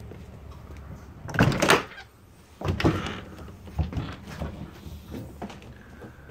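Travel trailer's entry door being opened: two loud clattering bursts from the latch and door, then a run of smaller knocks from steps on the fold-out entry steps and floor.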